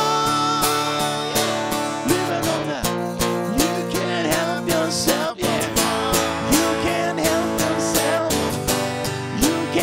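Two acoustic guitars strummed together in a steady rock rhythm, playing an instrumental stretch between sung lines, with a brief break in the strumming about five seconds in.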